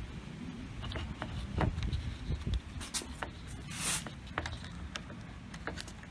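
Sliding-door roller assembly in its black plastic housing being worked by hand out of the door's metal bottom rail: scattered small clicks and knocks, with a short scraping rasp about four seconds in.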